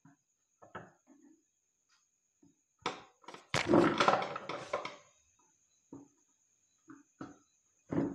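Handling knocks and thuds as a plastic batten lamp holder and screwdrivers are worked against a wooden switchboard. A louder stretch of rattling clatter lasts about a second and a half, a few seconds in.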